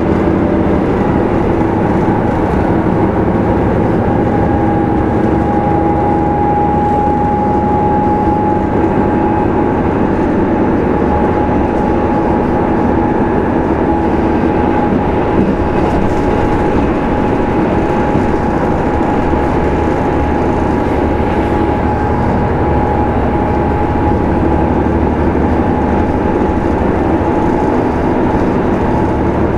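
KiHa 75 diesel railcar running at steady speed between stations, its diesel engine and wheels on the rails making a continuous running noise. A steady high whine comes in a few seconds in.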